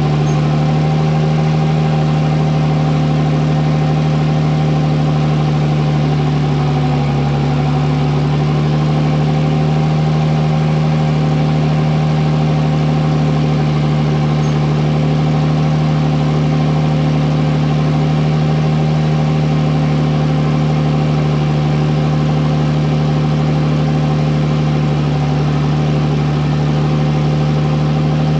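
Diesel engine of a Bell 4206D tractor hitched to a tile plow, running steadily close by at a near-constant idle.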